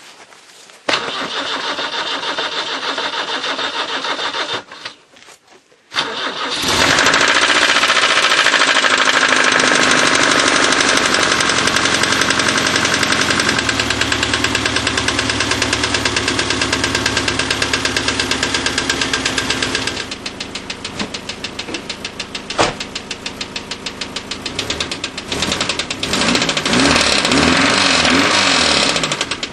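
BMW E30's M10B18 four-cylinder engine starts and runs, then settles to a lower speed with an even, rhythmic knock. The knock is from a worn connecting-rod bearing: the number-four rod is loose on the crankshaft. The engine is revved up and down a few times near the end.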